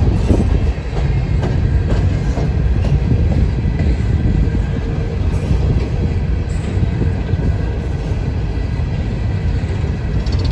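Norfolk Southern open-top coal cars rolling past close by: a steady, loud rumble of steel wheels on rail, with a few clicks over rail joints in the first few seconds.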